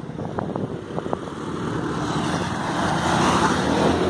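Motorbike running while being ridden, its engine hum under rushing wind and road noise that grows louder toward the end.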